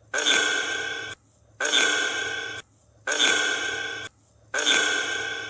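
Necrophonic spirit-box app set to white noise, echo and reverb, playing from its DR60 sound bank: four bursts about a second long, one every second and a half. Each is a hiss with a steady tone in it, starting sharply and fading away.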